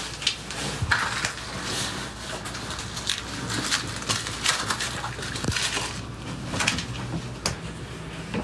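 Shoes being stepped out of on a concrete entryway floor, then socked feet stepping up onto wooden floorboards. The sound is an irregular run of scuffs, rustles and small knocks, over a low steady room hum.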